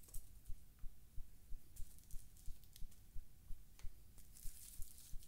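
Cellophane sweet wrapper crinkling in short spells, most strongly near the end, over a faint, regular low thud about three times a second.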